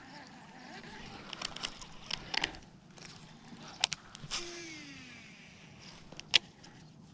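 Close handling noise: rustling and a scatter of sharp clicks and knocks as the fishing rod and reel are moved among the bank weeds, the sharpest click near the end. A short falling tone sounds a little past the middle.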